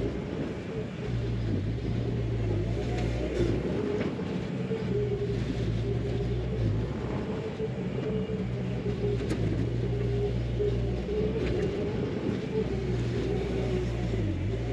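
Skid steer's diesel engine running steadily while it grades soil with a grading attachment, its note dipping briefly now and then as it takes load. A few light clanks sound over it.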